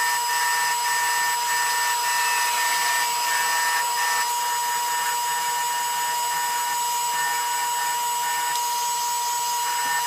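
Lathe running at speed with a cloth buffing wheel in its drill chuck, a steady whine over an even hiss, while a resin pen blank on its mandrel is held against the spinning wheel and buffed to a shine.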